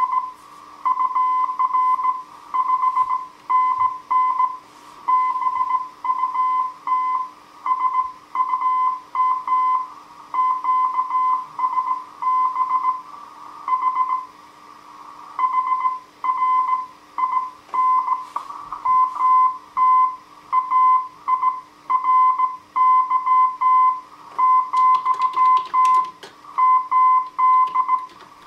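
Slow-speed Morse code (CW) from a restored Heathkit HW-101 transceiver: a steady mid-pitched beep keyed on and off in dots and dashes, over a faint low hum, with a brief crackle near the end.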